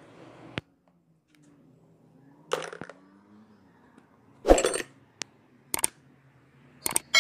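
Metal hand tools such as spanners clinking and knocking: several separate sharp clinks, the loudest about four and a half seconds in.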